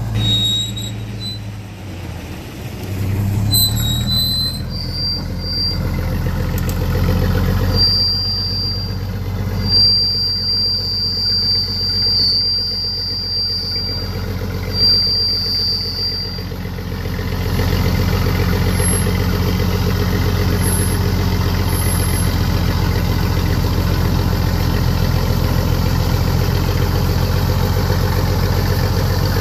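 A vehicle engine running, with several high-pitched squeals during the first half, one of them held for about four seconds. About halfway through, the engine settles into a steady, even run.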